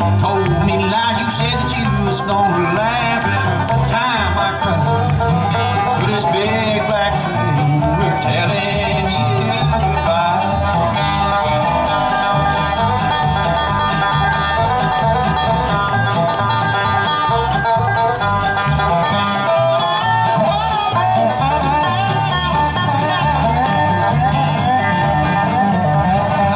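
Bluegrass band playing live: banjo, fiddle, acoustic guitar, upright bass and a resonator guitar (dobro) played with a steel bar, over a steady bass beat.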